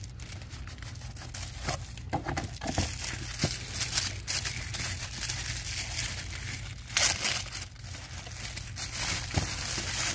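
Thin plastic bag crinkling and rustling in irregular handfuls as it is pulled off a small boxed jewelry case. The loudest burst of crinkling comes about seven seconds in.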